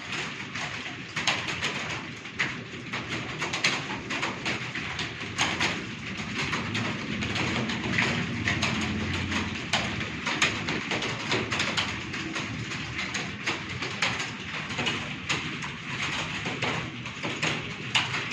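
Computer keyboard typing: a fast, continuous run of keystroke clicks.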